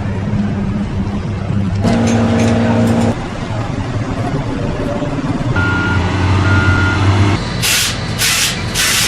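A vehicle engine running steadily, with two short high electronic beeps a little past the middle and several short bursts of hissing near the end.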